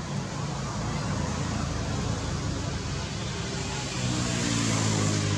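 Low engine hum of a motor vehicle over steady background noise, growing louder about four seconds in.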